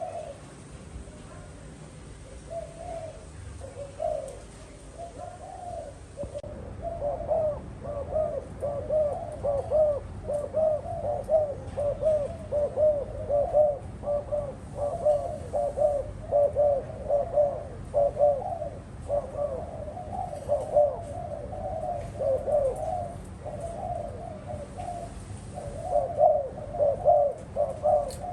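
Spotted dove cooing: a few scattered coos at first, then from about seven seconds in a steady run of repeated coos.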